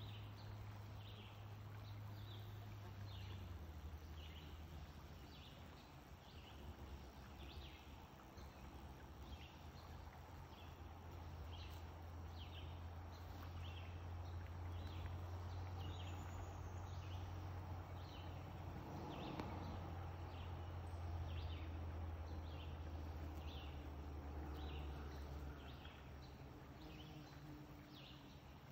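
Faint outdoor ambience: a steady low hum under a short high chirp that repeats a little more than once a second. The hum drops away near the end.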